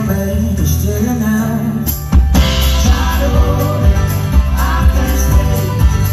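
Live folk band playing and singing, with voices over acoustic guitar and banjo. About two seconds in, the full band comes in louder with a heavy low end and a steady beat.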